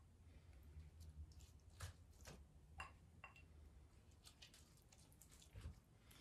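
Near silence, with faint wet dabs and a few light clinks: a basting brush dipping into a bowl of sauce and brushing it over ribs in a pan.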